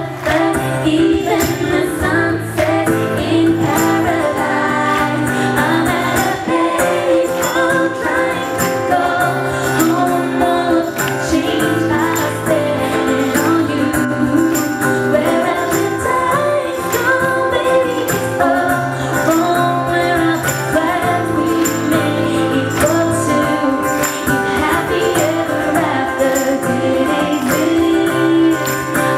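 Live pop song: female vocals sung over instrumental accompaniment, with jingling percussion such as a tambourine keeping a steady beat.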